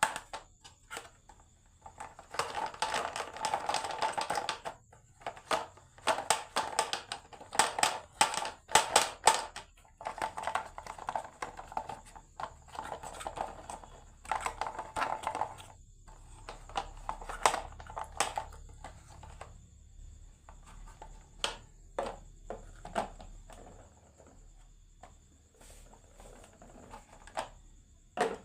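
Marbles rolling and clattering down a wooden marble run: stretches of rattling rolling and many sharp clicks as marbles hit the wooden track pieces, busiest in the first ten seconds and thinning out to scattered clicks later.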